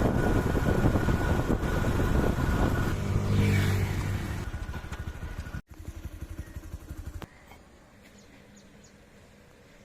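Motor vehicle on the road: loud engine and road rumble, with an engine note swelling and fading away about three seconds in. After a sudden break past the middle, only a quiet steady outdoor background remains.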